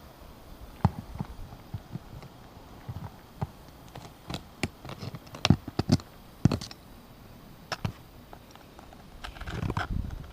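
Irregular sharp taps and clicks of hand work with a hammer and roofing nails on ridge-cap shingles, with a brief rustle near the end.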